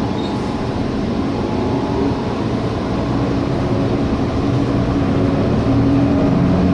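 City bus engine and road noise heard from inside the cabin, a steady rumble with a hum that grows louder as the bus picks up speed.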